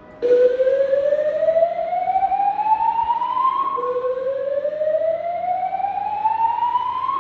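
Building fire-alarm voice-evacuation system sounding its slow-whoop alert tone: two rising whoops, each sweeping up over about three and a half seconds, then dropping back and starting again. It is the building's early-alert signal, sounded while the cause of the alarm is being investigated.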